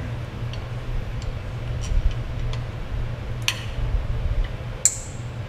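Light metallic clicks and clinks of hand tools and small metal parts being worked, with a sharper clink a little past three seconds in and a ringing metal ping near the end, over a steady low hum.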